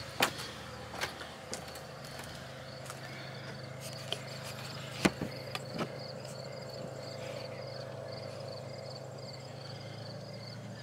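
Crickets chirping in a fast, even pulse that sets in about four seconds in, over a steady low hum. A few sharp pops or cracks sound at intervals, the loudest about five seconds in.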